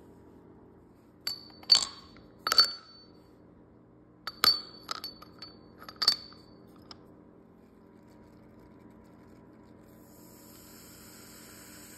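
Granite whiskey stones dropped into a cut-crystal whiskey glass, clinking sharply against the glass and each other with a ringing glass note: a few hits, a pause, then a quicker run of clinks. Near the end whiskey is poured over the stones with a soft pouring splash.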